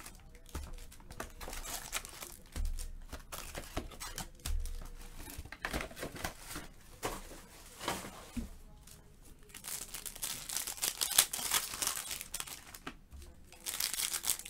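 Foil wrappers of Topps Chrome Mini trading-card packs crinkling and rustling as the packs are pulled from the box and handled, with a few soft thumps. The crinkling gets busier and louder in the second half.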